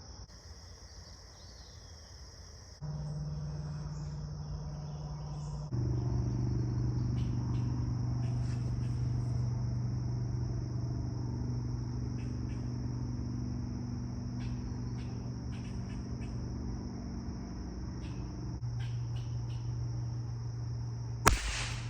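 Crickets and other insects making a steady high trill. About three seconds in, a low steady drone sets in and steps louder soon after, and a single sharp click sounds near the end.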